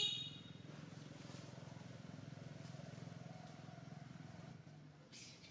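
A short, loud, high-pitched squeak at the very start, then the low steady hum of an engine running, with a fast even pulse. The hum fades out about four and a half seconds in.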